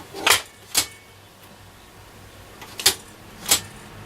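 Four sharp mechanical clicks, a pair a half-second apart near the start and another pair about three seconds in: the band switches of a Selena B210 transistor radio being worked to change wavebands. A faint steady low hum runs under them.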